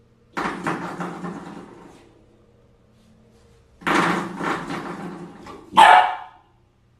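Spring doorstop flicked by a puppy's paw, twanging with a wobbling boing that fades over about a second and a half; it happens twice. Near the end the puppy gives one short, loud bark.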